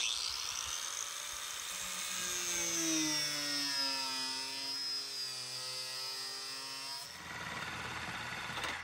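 Power tool cutting the top corner off a vehicle's inner cowling. Its high whine drops in pitch as it bites about two seconds in, holds steady, and gives way to a rougher hiss about seven seconds in.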